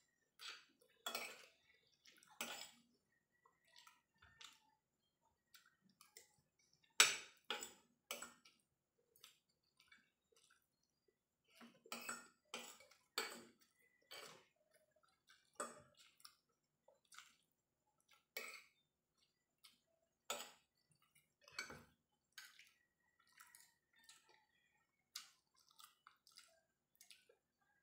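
Metal spoon and fork clinking and scraping on a ceramic plate while scooping fried rice, in scattered sharp clicks with soft chewing between; the loudest clink comes about seven seconds in.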